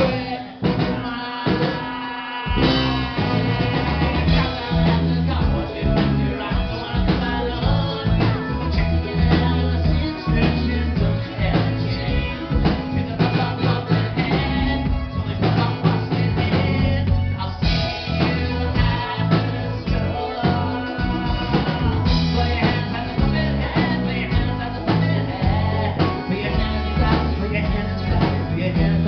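Live rock band playing, with drums, bass, keyboards and singing. The drums and low end drop out for about two seconds near the start, then the full band comes back in.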